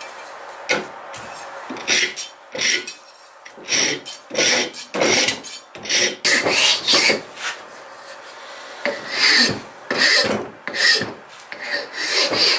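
Hand file rasping across a wooden knife-handle blank clamped in a bench vise, in short back-and-forth strokes about two a second, with a short pause a little past the middle.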